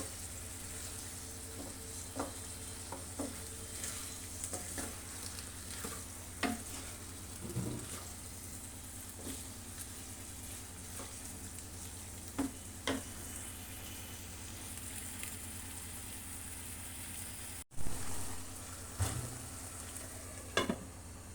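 Chicken kababs sizzling as they fry in oil in a pan: a steady hiss with scattered light clicks and taps of a utensil against the pan. The sound cuts out for an instant once, near the end.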